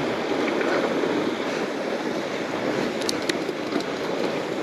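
Bicycle tyres rolling fast over a groomed snow trail on a descent, a steady rushing noise mixed with wind on the microphone, with a few light clicks about three seconds in.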